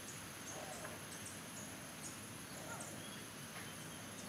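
Faint outdoor ambience: a steady high insect drone with scattered short, high chirps.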